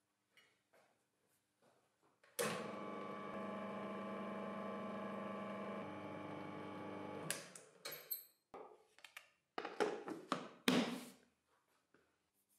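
Homemade plywood lathe's 1 HP single-phase electric motor running with a steady hum, starting suddenly a couple of seconds in and stopping about five seconds later. A few separate knocks and clicks follow.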